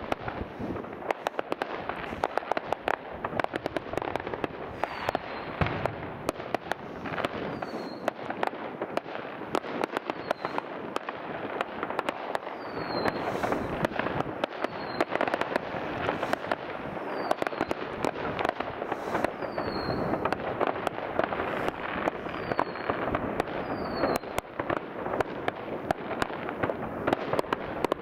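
New Year's fireworks going off all over a town at once: a dense, unbroken crackle of firecrackers and bangs from rockets and aerial shells, with a short high falling whistle every second or two.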